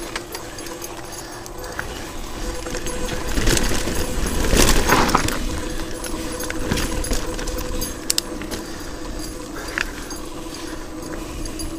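Mountain bike rolling down a dirt singletrack: the chain and loose parts rattle with many small clicks. A louder rush of noise swells about four seconds in and fades.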